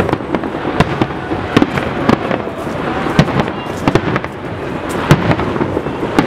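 Fireworks display going off: a string of sharp bangs from bursting shells at irregular intervals, several a second at times, over a steady background of noise.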